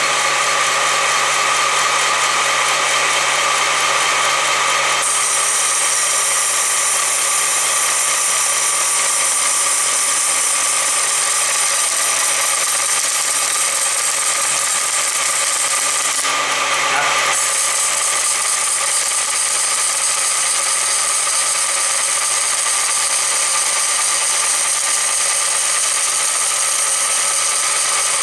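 Homemade wheel-polishing jig running: its motor spins a car wheel rim at a steady speed with a constant whine and hiss. The sound shifts about five seconds in and wavers briefly around sixteen seconds.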